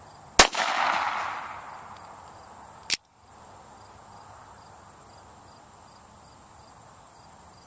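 .22 pistol firing a single shot about half a second in, its report echoing and dying away over a second or two. A short sharp click follows near three seconds in.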